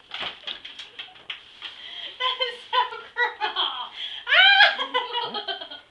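Kids laughing and giggling, with a loud, high-pitched squeal about four and a half seconds in.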